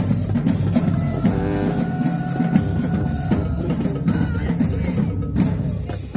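Marching band percussion section playing a fast, driving beat on bass drums and snare drums, with a few held pitched tones above the drums.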